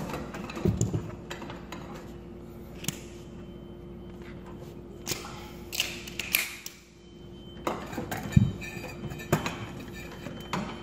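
Scattered clicks, taps and knocks from electrical wires, plastic wire nuts and a plastic baseboard-heater thermostat being handled, with a couple of dull thuds, over a faint steady hum.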